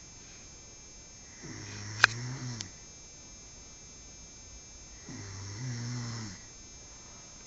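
A man snoring while asleep: two low, rasping snores about three and a half seconds apart. A sharp click comes during the first snore.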